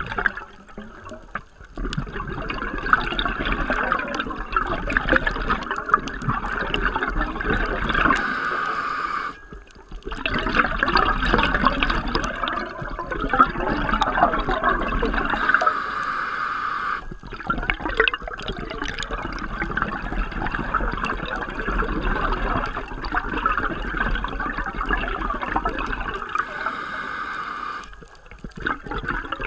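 Scuba diver's regulator exhaust bubbles heard underwater: long bubbling exhalations lasting several seconds, broken by three short pauses for inhalation.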